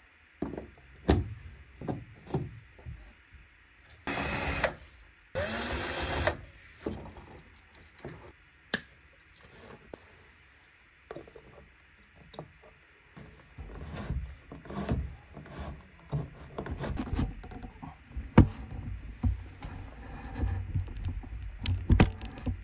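Knocks and clicks of a wall outlet and its box being handled, with two short bursts of a cordless power driver about four and five and a half seconds in, its motor spinning up in the second. Then a long run of irregular scraping and knocking at the drywall.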